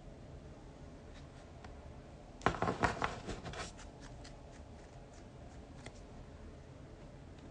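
A brief cluster of clicks and rustling, the sound of close handling, about two and a half seconds in over faint room tone, with a few faint ticks after it.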